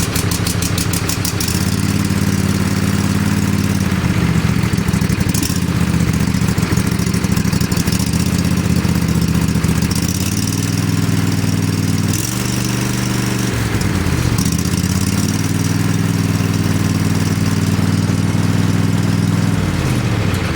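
Briggs & Stratton 21 hp V-twin engine on a riding mower catching on a cold, choked start and then running steadily. Its speed shifts up and down several times about halfway through, and it winds down near the end.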